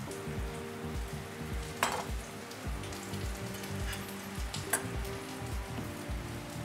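Background music with a steady beat over light sizzling from a hot pan where a seared steak is resting off the heat. There are two short sharp clicks, about two seconds in and near five seconds.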